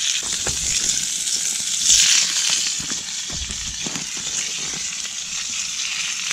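Meat sizzling in a small cast-iron skillet, a steady hiss that swells briefly about two seconds in, with scattered light clicks.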